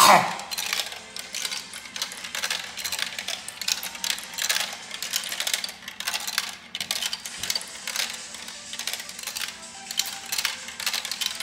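Glass marbles clattering down a plastic marble run: a rapid, irregular stream of clicks and rattles as they drop through the tubes, funnels and spinners, loudest in a burst at the start.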